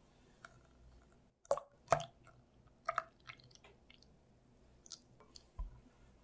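A few scattered wet splats and clicks from crepe batter in a glass mixing bowl as milk is poured in and stirred with a spatula. The loudest come about one and a half to two seconds in.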